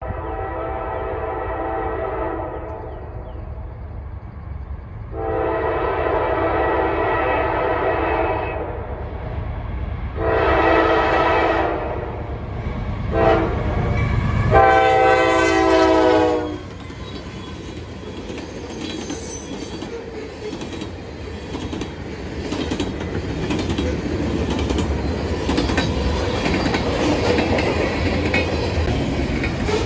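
Norfolk Southern freight train approaching and passing: the locomotive sounds its horn in five blasts over the first half, two long ones and then shorter ones, the last ending about halfway through. After that comes the steady rumble and clickety-clack of tank cars rolling past, growing louder near the end.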